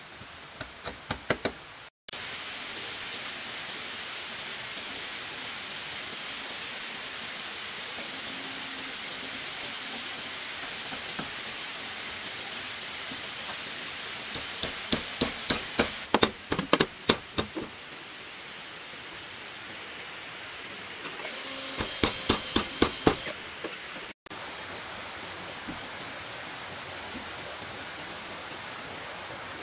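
Repeated blows of a hand tool on wood, coming in three quick runs of several strikes a second, over a steady hiss.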